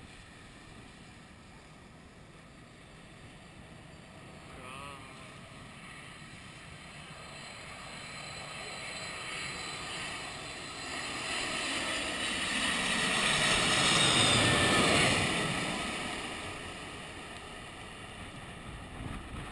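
Jet airliner's engines on landing approach, passing low overhead. The rushing engine noise builds slowly to its loudest about 14 seconds in, then falls away with a drop in pitch as the plane goes past.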